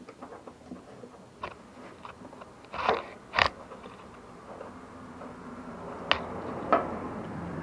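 A 3/8-inch square-drive tool being worked into and turning a square oil drain plug on a lawnmower engine: scattered light metal clicks, with two sharp knocks about three seconds in and two more later on.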